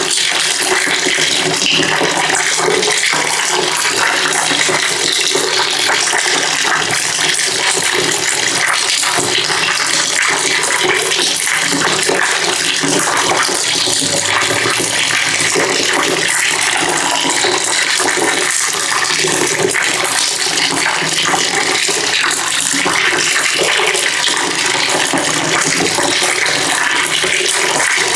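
Water pouring steadily into a bucket, a continuous even rush of splashing water.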